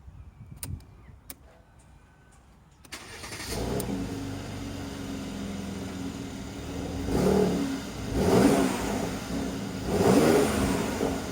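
Mercedes-AMG C43's twin-turbo V6 cold-starting about three seconds in after a few faint clicks, flaring up and settling to idle. It is then blipped three times, each rev rising and falling back to idle.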